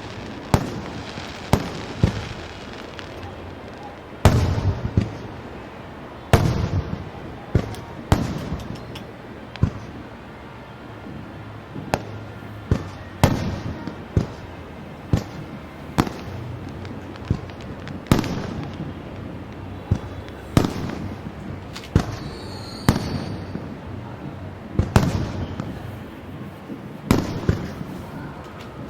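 Fireworks display bursting in an irregular run of sharp bangs, some close together and some a couple of seconds apart, the bigger ones trailing off in an echoing rumble.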